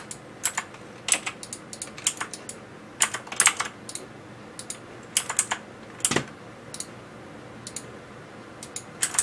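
Computer keyboard keys and mouse buttons clicking irregularly, with some clicks in quick clusters and sparser, single clicks later on.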